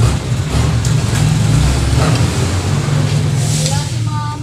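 A motor vehicle's engine running close by: a low, loud rumble that swells through the middle and eases off near the end, as of a vehicle passing.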